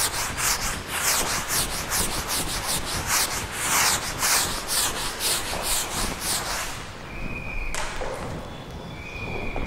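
Writing on a board: quick scratchy strokes, several a second, for about seven seconds, then fainter scratching with two brief high squeaks near the end.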